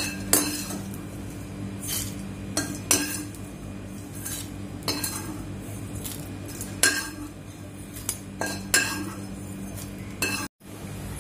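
A metal spoon scraping and clinking against a nonstick kadai as dry-roasted dried prawns are scooped out into a bowl: a dozen or so sharp clinks at irregular intervals over a steady low hum. The sound cuts out briefly near the end.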